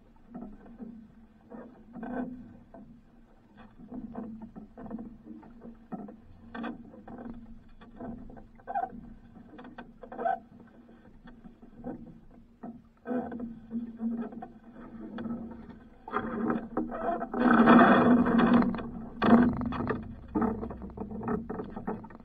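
Water sloshing against the hull of a small wooden outrigger fishing boat, with irregular knocks and creaks, busier and louder for a few seconds near the end.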